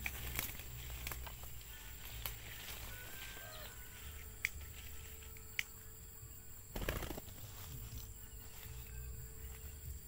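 A spotted dove flapping its wings in one short flurry about seven seconds in, over low wind rumble on the microphone and a few sharp ticks from dry grass.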